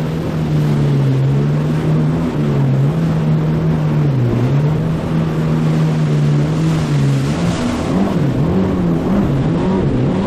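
Yamaha WaveRunner personal watercraft running at speed, its engine tone steady at first and then rising and falling several times in the last few seconds, over a constant rush of water and wind.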